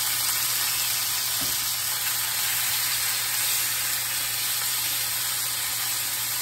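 Canned yellow squash slices and onions sizzling steadily in hot oil in a cast-iron skillet, just added to the hot pan.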